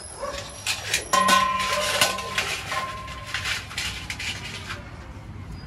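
Metal hand tools clinking and clattering together, a quick run of sharp clicks and knocks with a short ringing note, loudest about one and two seconds in, dying away near the end.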